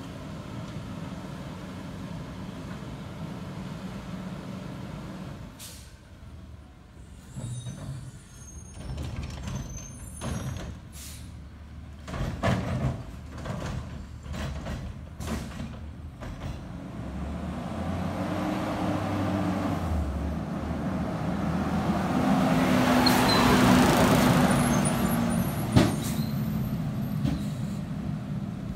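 2009 Autocar ACX/Heil Odyssey CNG garbage truck working a curbside pickup with its Curotto Can arm: the engine runs steadily, then a series of knocks and clangs as the cart is lifted and shaken out. The engine then builds up, with a long loud air hiss near the end as the truck moves off.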